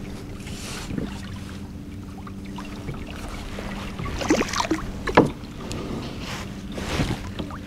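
Handling noises on a fishing kayak as bait is rigged and a baitcasting rod is picked up: rustles and knocks of gear against the hull over a faint steady hum. A cluster of louder knocks and rustles comes about four to five seconds in, with the loudest knock near the end of it and another rustle near seven seconds.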